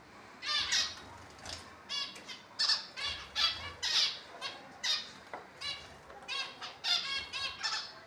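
Small caged finches calling, several birds together: short call notes repeated two or three times a second.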